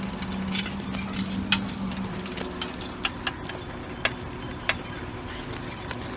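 A low steady hum that stops about two seconds in, with about half a dozen sharp, irregular clicks.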